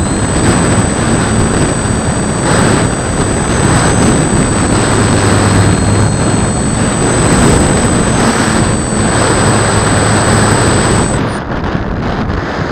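Brushless electric motor and propeller of a foam RC airplane running under power in flight: a high steady whine over a low propeller buzz, with rushing air across the onboard microphone. The whine cuts off about 11 seconds in as the motor is throttled back.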